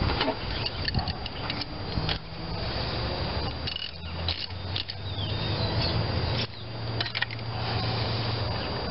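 Irregular clicks and light rattles of spark plug wires and their rubber boots being gripped and pulled off the engine's plug wells, over a steady low hum.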